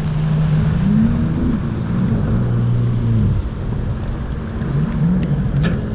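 Sea-Doo GTI 155 personal watercraft's three-cylinder four-stroke engine running under way, its pitch rising and falling several times with the throttle, over a steady rush of water and wind.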